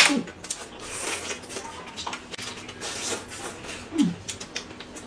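Eating noises at a table: chewing, crunching and smacking with scattered clicks. A short falling whine sounds twice, once just after the start and again, louder, about four seconds in.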